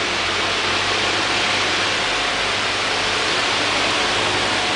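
Steady, even hiss of background noise with a faint low hum underneath, with no distinct events.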